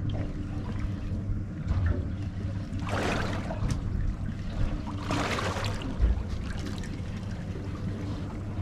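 Steady low hum of a boat's idling engine, with water splashing against the boat twice about three and five seconds in.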